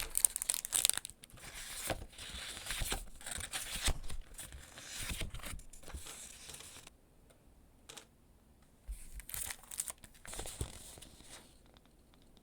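Packaging being torn open and crinkled by hand, in a run of rustling bursts, then a pause of about two seconds, then more rustling.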